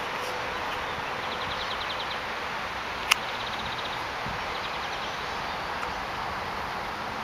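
Outdoor park ambience: a steady background hiss, with a small bird giving a rapid ticking trill twice, and a single sharp click about three seconds in.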